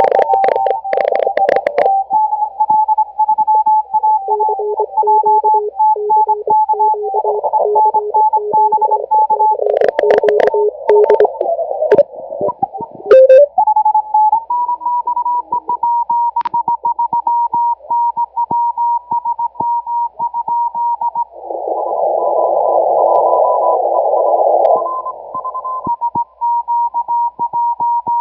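Morse code (CW) signals on the 40-metre amateur band heard through a shortwave receiver: several overlapping beeping tones between about 400 Hz and 1 kHz, keyed on and off in dots and dashes. About twelve seconds in, a tone slides upward as the receiver is retuned, with a few clicks. Later a rushing band of noise lasts about three seconds.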